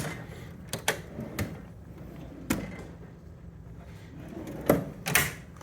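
Metal tool chest drawers being opened and shut, with a few scattered clicks and knocks and two louder bangs near the end, the second a short slide.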